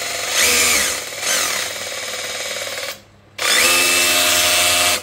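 Worx cordless mini rotary hammer run with the trigger pulled and nothing in the bit. The motor speeds up a couple of times, stops about three seconds in, then runs again steadily for over a second.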